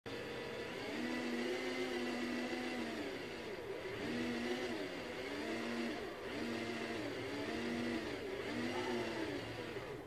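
Small DC gear motors of a robot car whining, their pitch rising and falling about five times as they speed up and slow down with the bending and straightening of a flex-sensor glove.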